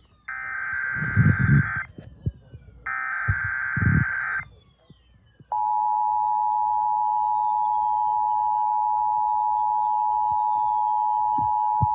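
NOAA Weather Radio Emergency Alert System signal: two short buzzy digital header bursts of about a second and a half each, then, about five seconds in, a loud steady attention tone that holds on. It signals that a severe thunderstorm warning is about to be read.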